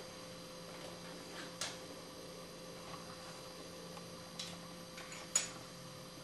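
A few light clicks of a glass bottle being handled and lifted off the table, the sharpest a little over five seconds in, over a steady electrical hum.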